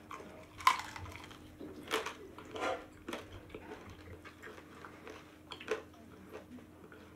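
Chicken being eaten by hand: chewing and meat being pulled off the bones, with a few short sharp clicks and knocks, the loudest just under a second in. A faint steady hum runs underneath.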